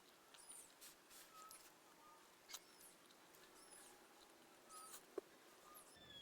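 Faint small-bird chirps: short, high-pitched arching calls repeated every half second or so, with a couple of soft clicks.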